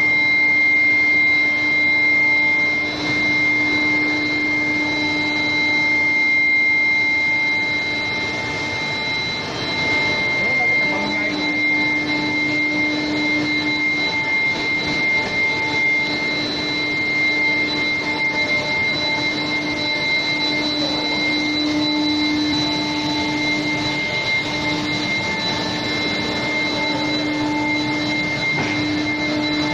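Steel bar induction heat-treatment line running: a steady high-pitched electrical whine from the induction heating over a continuous machinery noise, with a lower hum that drops in and out.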